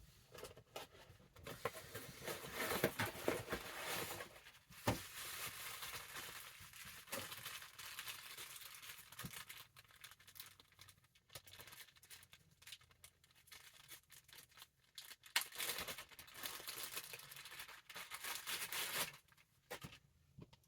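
Action-figure packaging being torn open and crinkled, in bursts of rustling and tearing with a few sharp clicks.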